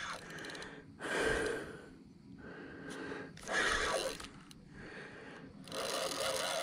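A man breathing hard from the strain of fighting a big catfish on rod and reel: three long, heavy breaths about two and a half seconds apart.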